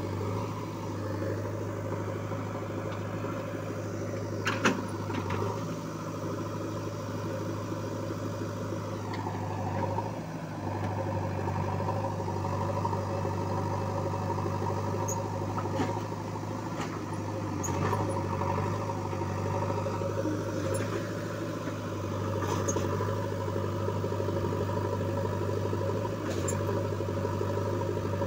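JCB backhoe loader's diesel engine running steadily at low throttle. A few sharp metallic knocks sound over it, the loudest about five seconds in.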